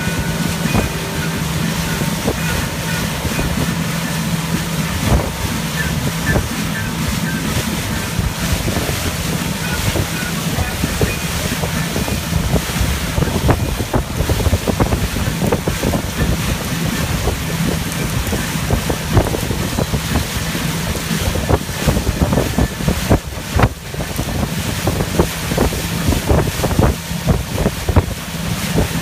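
Motorboat under way at speed: a steady engine hum under the rush of the churning wake, with wind buffeting the microphone.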